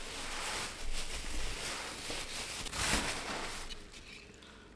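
Thin plastic bag crinkling and rustling as it is handled around a food container. It is louder about a second in and again near three seconds, then fades out.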